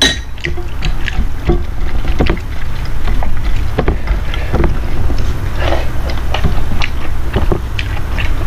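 A person eating close to the microphone: an irregular run of short chewing and mouth clicks over a steady low rumble.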